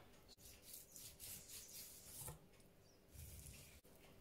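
Faint, irregular scraping and rubbing of a kitchen knife cutting sinew and fat off a block of corned beef on a plastic cutting board.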